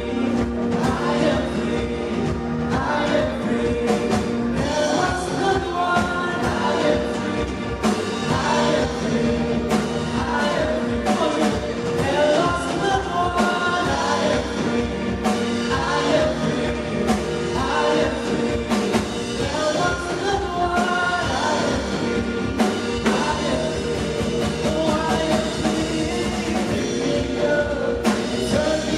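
Live church worship band playing an upbeat song with drums, with singing voices over it.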